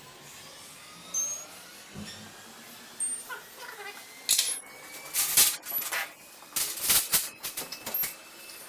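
Irregular clicks and light knocks, coming thicker from about four seconds in.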